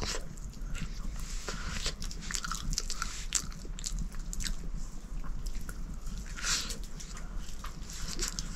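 Food being bitten and chewed, with irregular small crunches and clicks.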